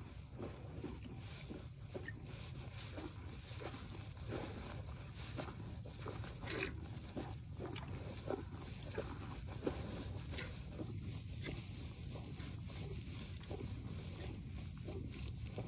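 Hand milking a Jersey cow: streams of milk squirting into a steel pail in a steady rhythm, about one to two squirts a second, over a low steady rumble.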